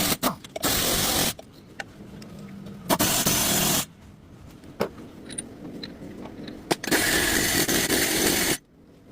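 Four bursts of loud hissing spray, each lasting about one to two seconds, with a few faint clicks and taps in the pauses between them.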